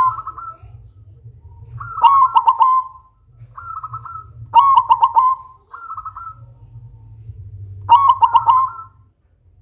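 Silver-coloured zebra dove (perkutut) cooing loudly: three long, fast-trilled coo phrases about every three seconds, with short higher notes between them.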